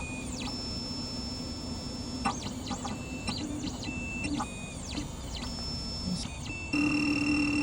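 Electronic key-cutting machine's motors whirring in short runs, their pitch sweeping up and then down as the carriage moves and stops. About seven seconds in, a louder steady motor hum starts.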